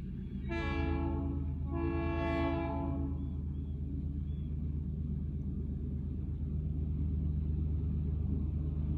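Diesel switcher locomotive sounding its horn twice, a short blast then a longer one, over the steady low rumble of its engine, which grows louder as it draws near.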